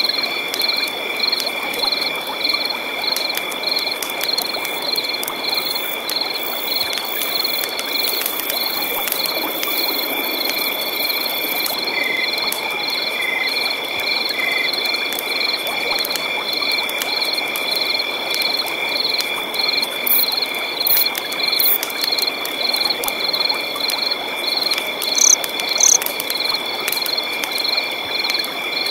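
Night chorus of frogs and insects: steady high-pitched trills with a regular chirp about twice a second, over a constant rushing of river water.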